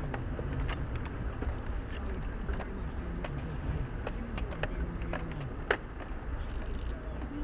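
Nissan Terrano's engine running with a rising and falling note as it is driven over rough off-road ground, heard from inside the cabin with a steady low rumble. Scattered knocks and rattles from the vehicle over the bumps, with one sharper knock a little before the end.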